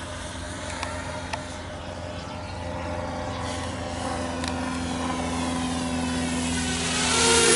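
Walkera F210 racing quadcopter in flight, its four brushless motors and propellers whining with pitch that drifts as the throttle changes. It grows louder near the end as it passes close by.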